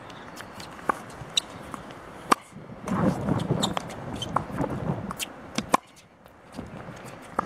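Tennis ball struck by a racket and bouncing on a hard court: sharp single pops a second or so apart, the loudest a little over two seconds in. A muffled murmur like distant voices runs for a couple of seconds in the middle.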